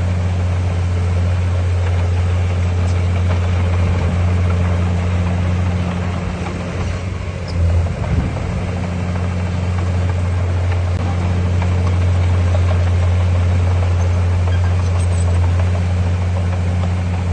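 Heavy diesel engine of earthmoving machinery running steadily under load, a strong low drone that wavers briefly about halfway through.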